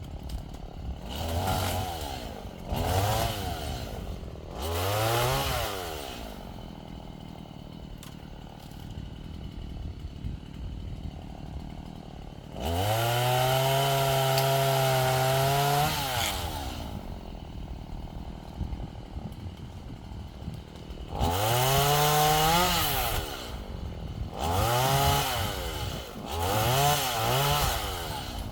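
Chainsaw engine idling between short blips of the throttle, with one run held at full throttle for about three seconds midway, then several more quick revs near the end.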